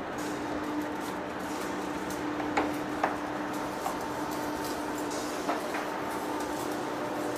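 Heavy-duty lathe running, its spindle turning a large steel workpiece with a steady hum. A few sharp metallic clinks come through in the middle.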